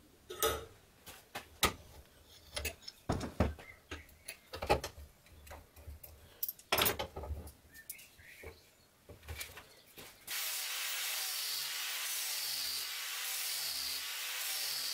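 Scattered knocks and clicks of metal clamps, a vise and a wooden handle scale being handled and set on a knife blade. About ten seconds in, an angle grinder fitted with a sanding pad starts abruptly and runs steadily, sanding a wooden handle scale.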